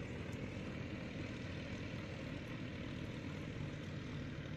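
Steady low drone of a river boat's diesel engine carried across the water, with no change in speed.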